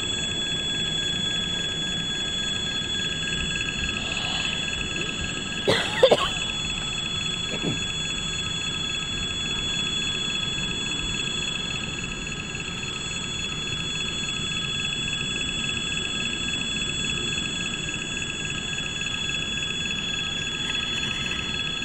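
Level-crossing warning signal ringing steadily and without pause, over the low rumble of freight wagons rolling past. About six seconds in there is a brief loud screech with gliding pitch.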